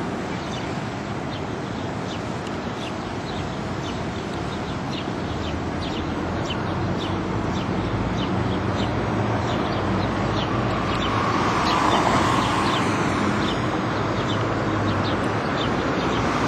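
Outdoor ambience: a steady wash of noise with birds chirping, short high chirps two or three a second. An engine passing swells the noise about eleven seconds in.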